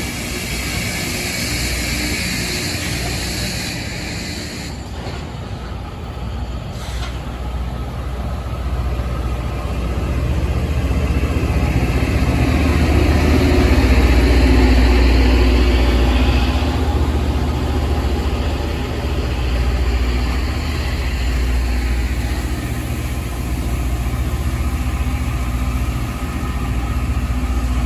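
Loram rail grinder train passing close by, its engines running with a deep, steady rumble that is loudest about halfway through. A high hiss over the top cuts off after about four seconds.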